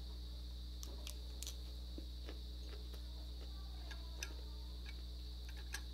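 Quiet eating sounds: scattered soft mouth clicks and smacks while chewing a lettuce-wrapped bite of rice, over a steady low hum and a steady high-pitched whine. Two sharper clicks stand out, about four and six seconds in.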